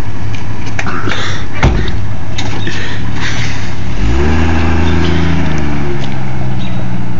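A car door slams shut about one and a half seconds in. About four seconds in the SUV's engine rises in pitch and then holds a steady note as the vehicle pulls away.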